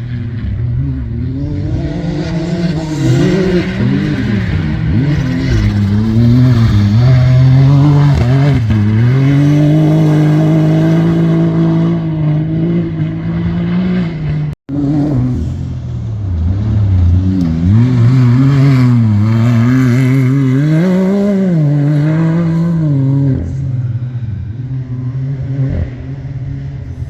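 Competition safari off-road racing vehicle's engine revving hard, its pitch climbing and dropping again and again as the driver accelerates and lifts over the course. The sound cuts out for an instant about halfway through.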